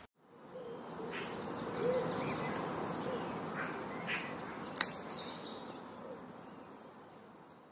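Outdoor bird ambience: scattered short chirps and soft, low hooting calls over a quiet background, with one sharp click a little before five seconds in; the sound fades out toward the end.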